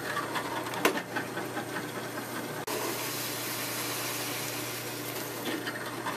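Drill press motor running steadily while a hole saw cuts a disc out of a plastic cutting board, with a hiss of cutting and a sharp click about a second in.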